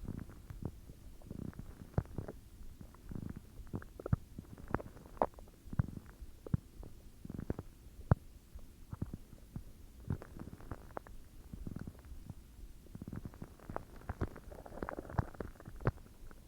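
A person's stomach growling and gurgling: a run of irregular short gurgles and pops over a low rumble, busiest near the end.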